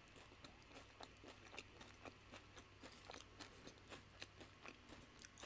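Faint chewing of nachos: soft, irregular mouth clicks and smacks, a few each second.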